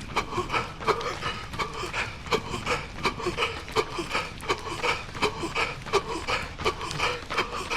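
A runner panting hard and fast mid-run, the breaths coming in a steady rhythm of about three a second.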